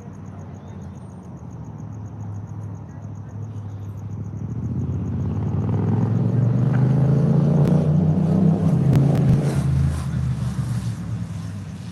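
A motor vehicle passing close by: its engine and road noise build over several seconds, stay loud for a few, then fade away.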